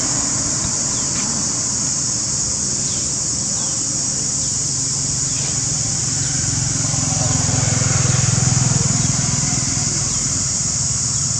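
Steady high drone of insects in the trees. Under it, the low hum of a motor vehicle swells a little past the middle and then eases, and a few faint short chirps fall in pitch.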